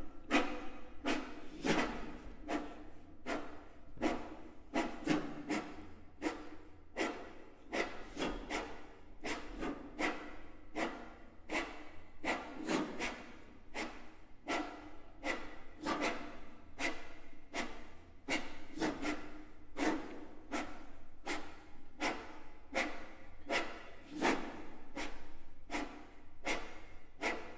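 Violins laid flat on a table, their wooden bodies and fittings rubbed by hand as an extended technique: a run of short scraping strokes, about one or two a second, uneven in spacing and strength.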